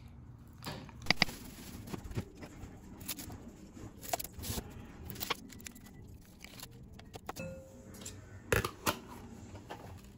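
Small objects being handled and set down: a string of sharp clicks, taps and knocks, loudest as a pair about a second in and another pair near the end.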